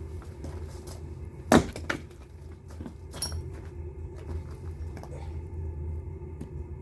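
Firewood knocking: one sharp knock about a second and a half in, a smaller one just after, and a fainter clack with a brief ring near the middle, over a steady low hum.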